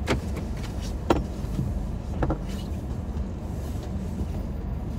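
Steady low rumble of an idling car heard from inside the cabin, with three sharp clicks and knocks in the first half as a child in the back seat takes off his seatbelt and moves about.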